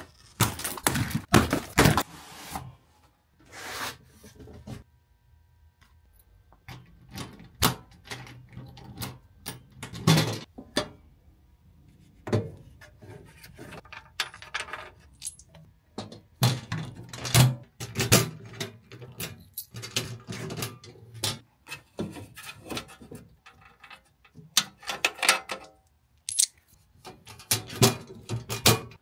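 Hard objects being handled: irregular clicks, knocks and rattles, with short quiet gaps between them.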